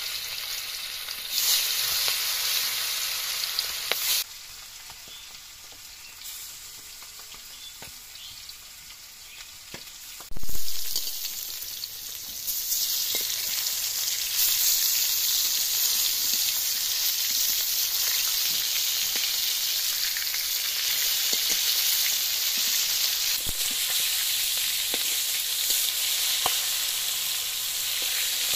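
Turmeric-coated boal (wallago catfish) pieces sizzling in hot oil in an iron kadai. The sizzle eases off about four seconds in, and a sharp knock comes about ten seconds in. From about twelve seconds on the sizzle is loud and steady, with a spatula stirring the pieces.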